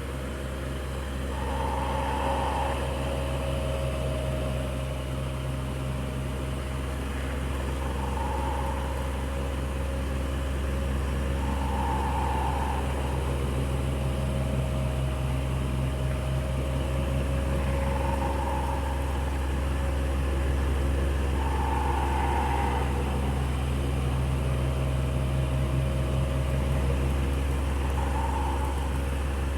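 Electric fan running steadily, a low motor hum with a steady rushing of air. A short higher-pitched whir comes and goes every few seconds.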